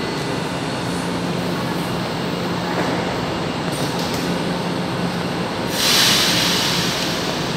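São Paulo Metro train standing at the platform with its doors closed, its equipment humming steadily. About six seconds in comes a loud burst of hissing air lasting roughly a second and a half.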